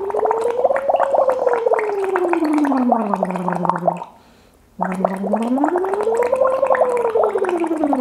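A woman humming through a drinking straw into a glass of water, so the hum comes out as bubbling, in a lax vox (semi-occluded vocal tract) voice exercise with pitch glides. The bubbly hum peaks about a second in and slides down. It stops briefly about four seconds in, then sweeps up and back down again in a second long arc.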